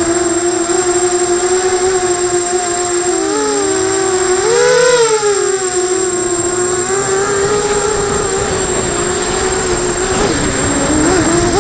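FPV250 racing quadcopter's brushless motors and propellers whining steadily, the pitch wavering with throttle, rising briefly about five seconds in and dipping near the end. A thin, steady high whistle sits above it.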